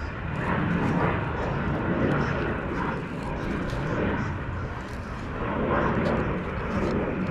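Jet aircraft taking off overhead: a steady, rushing rumble of jet engines that swells and eases slightly as it passes.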